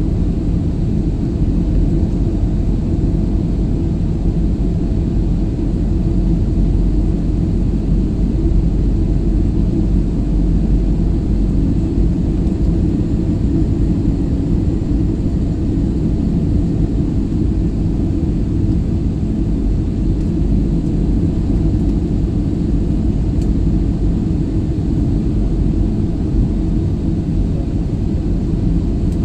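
Steady, low rumble of engines and rushing air inside the cabin of an Airbus A320-family airliner descending on approach to land.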